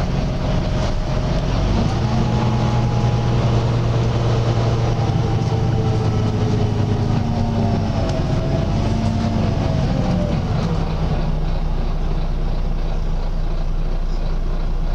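Volvo B9TL double-decker bus's six-cylinder diesel running, heard from on board. About two seconds in it pulls harder, with a whine that slowly rises and falls. After about ten seconds it drops back to a low steady run.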